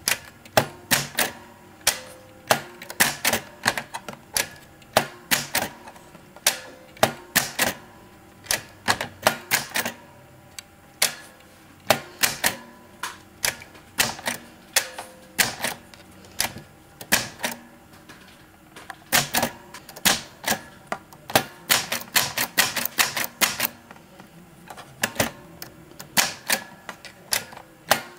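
Typing on a 1941 Smith-Corona manual typewriter: irregular, sharp keystrokes, two or three a second, with a quicker run of strokes a little past two-thirds of the way through.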